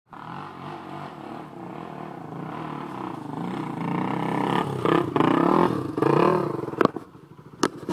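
Pit bike engine revving up and down, getting louder as a bike passes close about four to six seconds in, then dropping away about seven seconds in. A few sharp cracks follow near the end.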